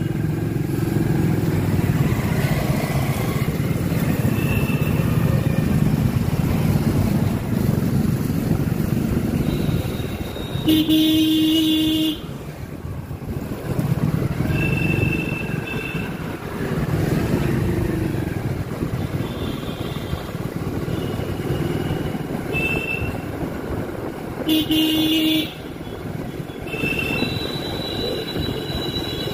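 Motorcycle running in city street traffic, with vehicle horns honking: two longer horn blasts about eleven seconds in and near the end, and several short, higher-pitched toots in between.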